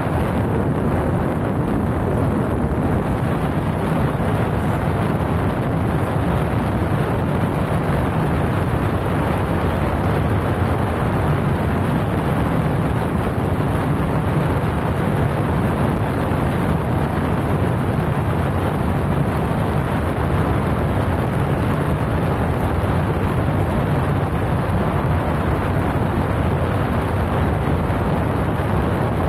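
Paramotor engine and propeller running steadily in flight, mixed with wind rushing over the microphone.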